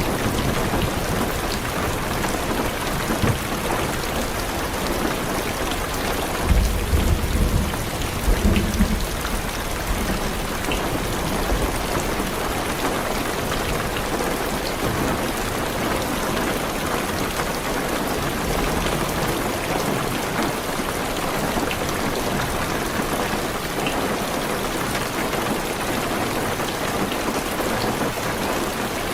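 Heavy rain falling steadily on a car's roof and windows, with a low rumble of thunder for a couple of seconds about seven seconds in.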